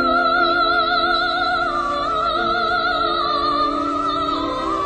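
Film soundtrack music: a slow, high melody held with wide vibrato over sustained chords, stepping down in pitch a few times.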